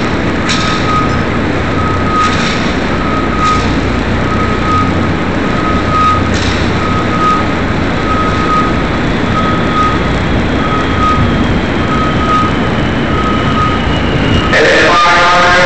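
An electronic beeper sounds one steady high note about once a second, like a vehicle's reversing alarm, over a heavy low rumble. A few sharp cracks of distant rifle fire come in the first few seconds, and music with singing cuts in near the end.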